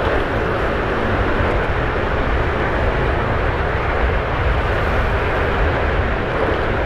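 Steady riding noise of a motorcycle heard from the rider's camera: engine and rushing air mixed with the surrounding motorbike traffic, inside a road underpass tunnel.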